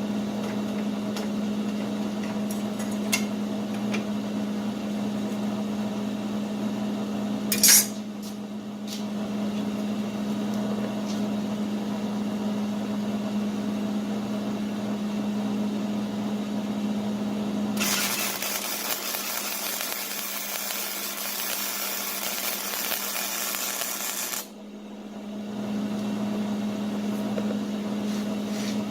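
Forge-shop work sounds: a steady machine hum with one sharp metallic clank about a quarter of the way in. In the second half the hum gives way to a loud, even hiss lasting about six seconds, then the hum returns.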